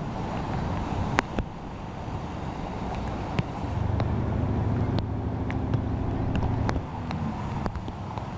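Outdoor background noise with a low, steady motor-vehicle engine hum from about four to seven seconds in, and a few scattered sharp ticks.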